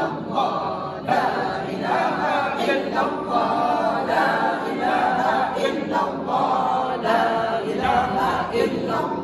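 A group of voices chanting an Islamic prayer together, unaccompanied, in a steady unbroken flow.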